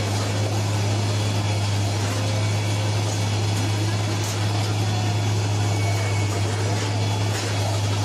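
Diesel engine of a rail track-laying machine running steadily, a constant low drone over broad machinery noise.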